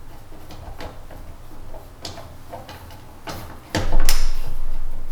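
Clicks and knocks of a hard plastic engine-bay cover being handled while a screw is fitted into a plastic trim clip, then a much louder scraping clatter of plastic about four seconds in.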